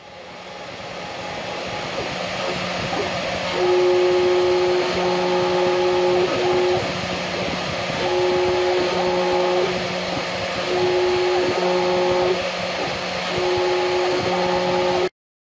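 Homemade CNC router milling copper-clad PCB: the spindle motor runs steadily while the cutter scrapes away copper. Stepper-motor whines step and ramp up and down in pitch as the axes move. The sound fades in over the first few seconds and cuts off suddenly near the end.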